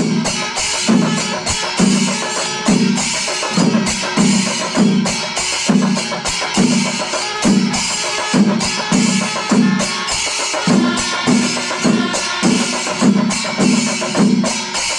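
Kerala temple percussion ensemble of chenda drums and elathalam cymbals playing a steady, loud rhythm: a low stroke about every three-quarters of a second under fast stick strokes and continuous cymbal clashing.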